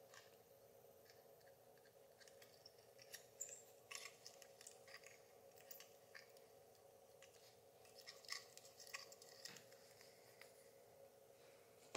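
Faint, irregular clicks and light scrapes of a thin metal rod against the glass of a water-filled sand-art frame, over a low steady hum.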